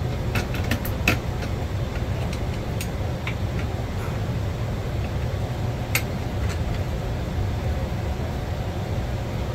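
Scattered light clicks and taps of metal parts being handled on a Herman Miller Eames chair's tilt mechanism, with a cluster about a second in and a sharper tap near six seconds. A steady low hum runs underneath.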